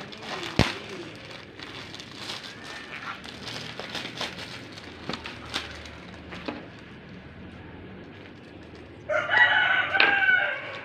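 Plastic bags crinkling and rustling as they are handled, with light clicks. Then, about nine seconds in, a rooster crows loudly for about a second and a half.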